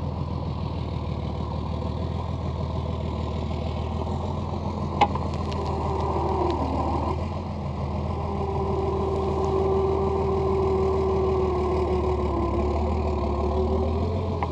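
A vehicle engine idling steadily, with a single sharp click about five seconds in.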